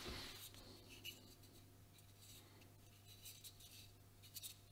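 Near silence: faint handling of a 3D-printed PLA drill-bit holder on a workbench, a soft scrape as it is picked up and a few faint clicks near the end, over a low steady hum.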